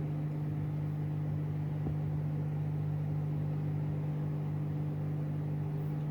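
Steady low hum of running machinery: one constant drone with a strong low tone and evenly spaced overtones, unchanging in pitch and level.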